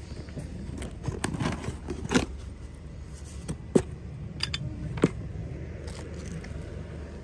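Small items being handled on a sale table: rustling with four sharp clinks and knocks over about four seconds, the loudest about two and four seconds in.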